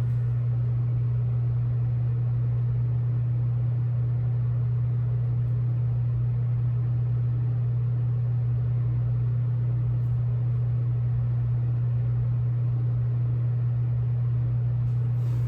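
A steady low hum that holds one level and pitch without change.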